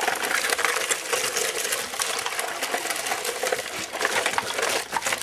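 Toy 4x4 truck running over dirt and gravel: a steady, dense clatter and scrape made of many small knocks.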